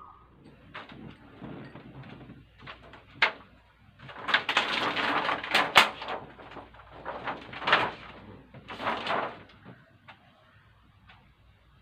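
Handling noise from working on an opened LED TV's backlight: scraping and rustling of the TV's parts, with several sharp clicks and knocks, loudest in a stretch in the middle.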